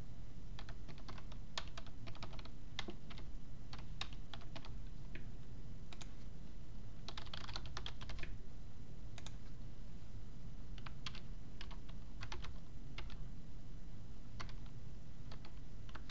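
Typing on a computer keyboard: irregular keystrokes with a quicker run about halfway through, over a steady low hum.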